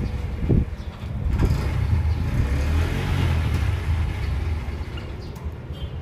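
A motor vehicle passing, its low rumble and tyre hiss swelling to a peak midway and then fading away.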